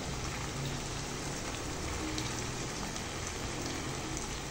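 Chicken pieces frying in a pan as coconut milk is poured in: a steady sizzling hiss with faint scattered crackles.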